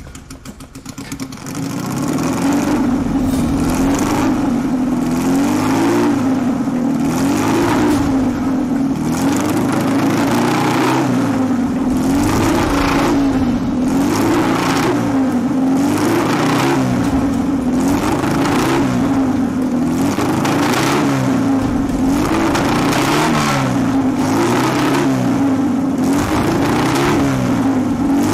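Car engine sound revving up and dropping back again and again in an even cycle, about once every two seconds. It swells in during the first two seconds and then holds a steady loudness.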